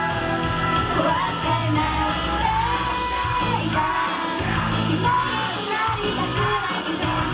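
Band music with a lead vocal singing, shouted in places, over a steady instrumental backing.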